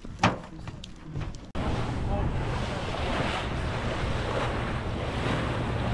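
A sharp click near the start, then, from about a second and a half in, a boat under way at sea: wind buffeting the microphone and water rushing past the hull, over a steady low engine hum.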